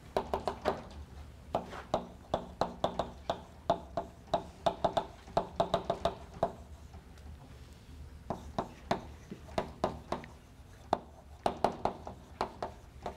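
Chalk writing on a blackboard: runs of quick taps and short scratches as each word is written, with brief pauses between words.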